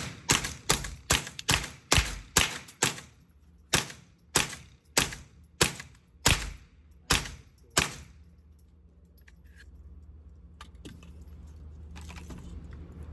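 A semi-automatic gun firing a string of about seventeen shots, rapid at first and then a little slower, stopping about eight seconds in.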